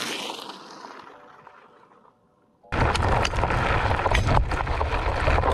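A whoosh that fades out to near silence over the first two seconds. Then, about two and a half seconds in, the rough noise of a Varla Eagle One electric scooter riding a rocky dirt trail cuts in: wind rumble on the microphone with many sharp clicks and knocks from its knobby off-road tyres on loose rock.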